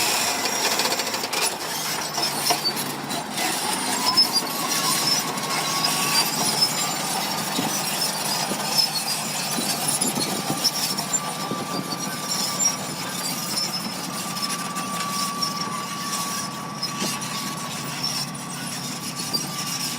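Heavy construction machine working, a continuous mechanical clatter with scattered knocks, and a steady high squeal that sets in about four seconds in and holds.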